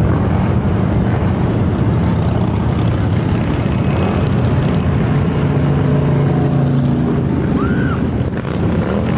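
A steady, loud rumble of many motorcycle engines passing in a parade, with several bikes rising in pitch as they accelerate midway through.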